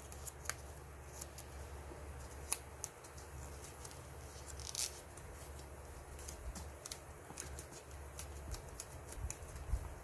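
Soft rustles and crackles of a sheet of paper being folded and creased by hand, with scattered sharper ticks, the clearest about two and a half and five seconds in.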